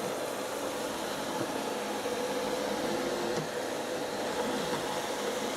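ILIFE A4 robot vacuum cleaner running in auto mode: a steady whir from its suction motor and spinning brushes with an even mid-pitched hum, not very noisy.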